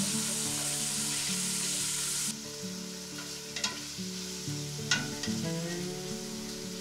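Diced chicken sizzling in hot vegetable oil in a stainless steel pan while it is stir-fried with a wooden spoon. The sizzle drops quieter a little over two seconds in, and the spoon clicks sharply against the pan twice. Soft background music plays underneath.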